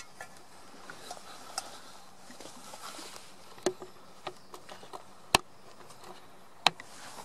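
Faint steady background hiss with about five sharp, isolated clicks, the two loudest a little past the middle and near the end.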